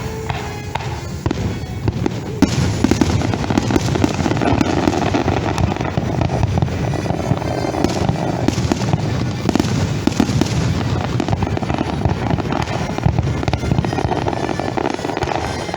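Aerial fireworks bursting and crackling in a dense, continuous barrage, with music underneath.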